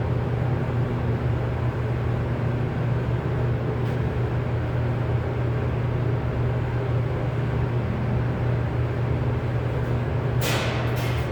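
Steady low mechanical hum, like a motor or engine running, with three short hissing bursts near the end.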